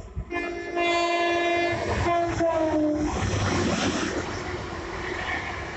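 Class 802 IET train passing at speed and sounding its three-tone horn: a long chord, then shorter blasts whose pitch drops as the train goes by (Doppler). The horn gives way to the steady rush and rumble of the train running through.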